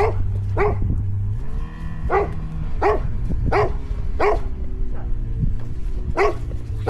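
A dog barking repeatedly, about eight sharp barks each under a second apart with a short pause midway, over a steady engine hum.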